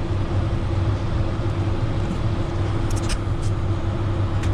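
Tractor engine pulling a grain cart, running steadily at a constant pitch, with a few faint clicks about three seconds in.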